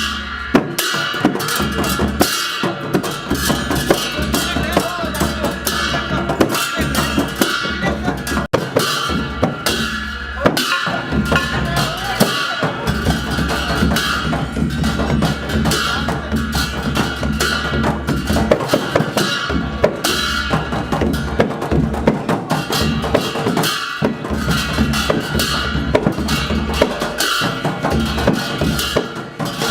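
Dhime baja: Newar dhime barrel drums beaten in a fast, dense rhythm, with cymbals ringing steadily along.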